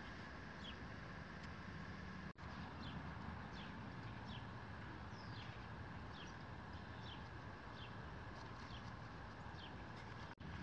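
A bird repeating a short falling chirp about every two-thirds of a second, faint, over a low steady rumble. The sound drops out briefly twice, once about two seconds in and once near the end.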